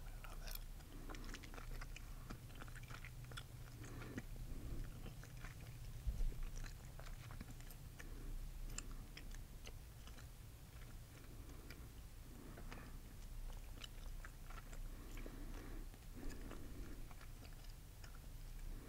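Chewing gum chewed slowly, close to the microphone, with soft repeated chomps and small wet mouth clicks. There is one low thump about six seconds in.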